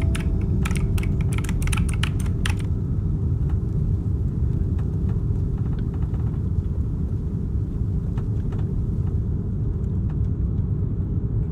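A steady low rumble, with a quick run of sharp clicks like keyboard typing over the first two and a half seconds and a few scattered faint ticks after.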